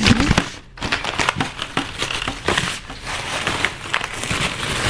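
Thin plastic bag and candy wrappers crinkling and rustling as they are handled.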